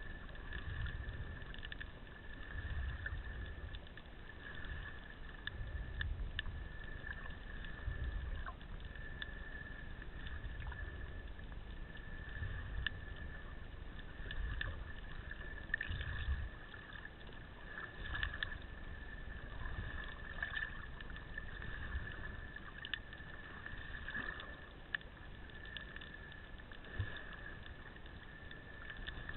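Muffled underwater sound picked up by a snorkeler's camera in its waterproof housing: irregular low rumbles every second or two under a steady high whine, with scattered faint clicks.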